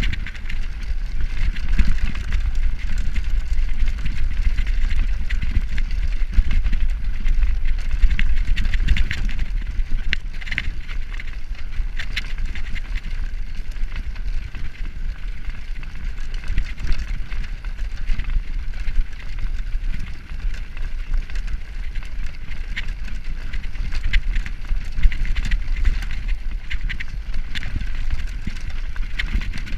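Road bike juddering over rough cobblestones (pavé): a steady low rumble with a dense, continuous clatter of small rattles from the bike.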